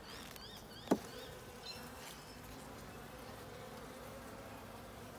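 Honeybees buzzing around an opened hive and the comb frame lifted from it, a steady hum. A single sharp click about a second in, and a repeated high chirp, about three a second, in the first second or so.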